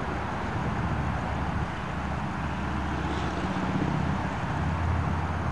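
Steady low engine rumble over outdoor background noise, with no crossing bell sounding.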